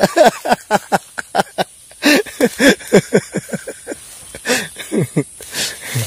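Men talking casually, the words not clear, over a steady high drone of forest insects.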